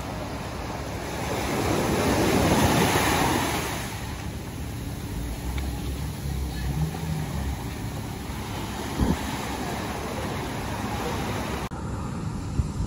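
Surf breaking and washing up a sandy beach, a steady rush of waves with one wave swelling louder about two seconds in. It cuts off abruptly near the end.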